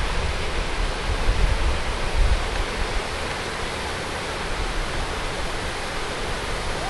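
Wind buffeting the microphone over a steady rushing hiss, with the low buffeting strongest in the first second or so.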